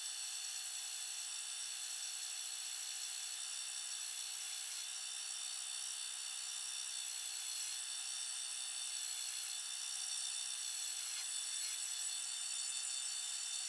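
Myford Super 7 lathe turning while a number 24 drill bit fed from the tailstock cuts into the spindle. The audio is sped up for a time lapse, so it comes through as a steady, high-pitched whir with no low end.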